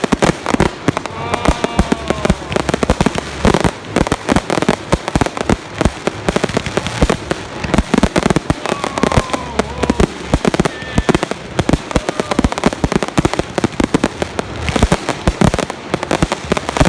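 Fireworks finale: salute shells bursting in a rapid, continuous barrage of loud bangs, several a second.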